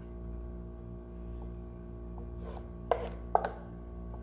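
Wooden spatula scraping thick arrowroot pudding out of a steel pan into a glass dish, with two sharp knocks near the end as the spatula and pan strike. A steady low hum runs underneath.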